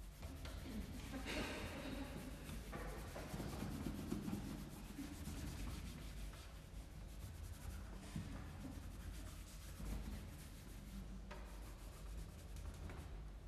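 A cello's wooden body being rubbed by hand, a continuous dry scratchy sound, strongest in the first few seconds and then a little softer.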